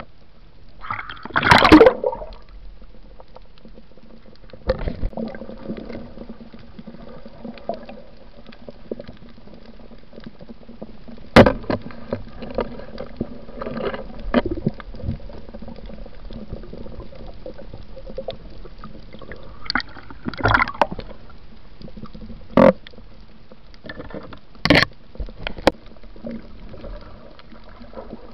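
Underwater sound heard through a camera housing: a steady muffled water rush with bursts of bubbling gurgles and a few sharp clicks or knocks.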